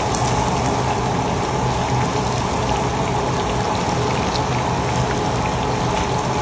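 Pieces of pomfret deep-frying in a wide wok of hot oil, the oil sizzling and bubbling steadily.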